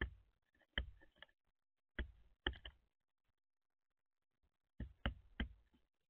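Black-billed magpie's bill pecking at the feeder tray and peanuts: faint, sharp taps and knocks, irregular, single or in quick pairs, with a pause of about two seconds in the middle.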